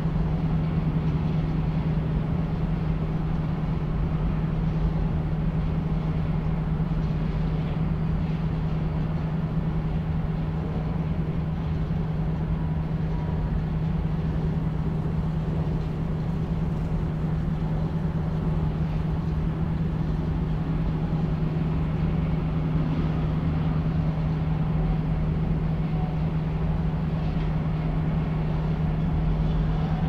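Chemical plant machinery heard from outside the site: a steady industrial drone, a strong low hum over a constant rushing noise, unchanging throughout.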